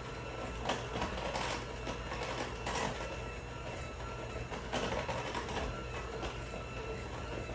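Electric mixer running steadily with a motor whine, beating flour and buttermilk into a cake batter, with several sharp knocks along the way.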